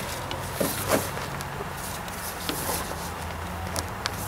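Hand-working noises as a fuel hose is worked loose on a compact tractor's fuel tank: a few scattered light clicks and knocks over a steady low hum.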